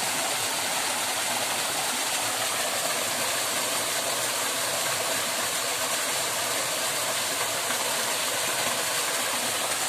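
Small waterfall and rocky stream rushing, a steady, even rush of water.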